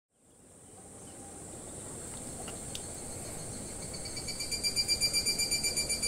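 Insects calling: a steady high hiss fades in, then about four seconds in a pulsing, ringing chirr joins it, holding several steady high pitches at about five pulses a second.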